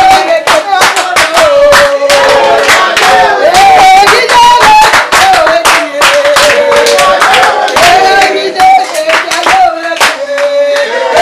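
Group singing with hand clapping keeping time, the claps sharp and frequent throughout.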